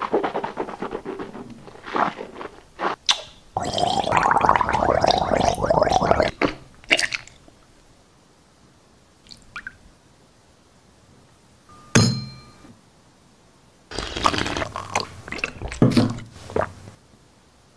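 Green mouthwash poured from its bottle into a stemmed glass for about three seconds, among knocks and clicks of handling. About twelve seconds in, one sharp glass clink rings briefly, followed near the end by a further cluster of glass and handling sounds.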